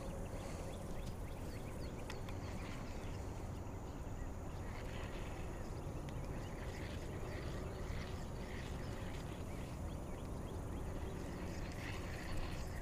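Quiet background ambience: a steady low rumble with faint short chirps repeating about twice a second through the middle.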